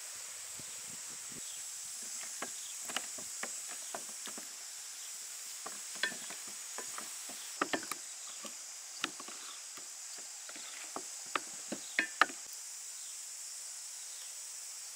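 Wet squelches and smacks of hands rubbing and kneading a thick spice-and-soy-sauce marinade into raw chicken drumsticks in a stainless steel bowl, coming in short irregular bursts, the loudest a little before the end, over a steady high hiss.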